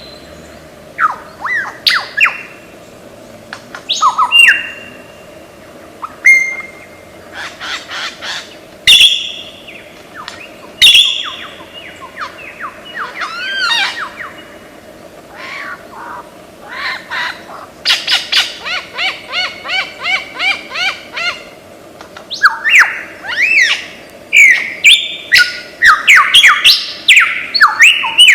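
Lyrebird singing its mimicking song: a varied run of loud whistles, sharp calls and sweeping pitch glides, with a fast run of repeated notes about two-thirds of the way through.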